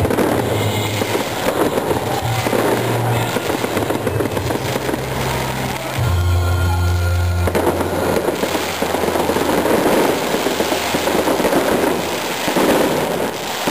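Aerial fireworks bursting and crackling densely and continuously, with music with steady low bass notes playing along; about six seconds in the crackle thins briefly under a held low note.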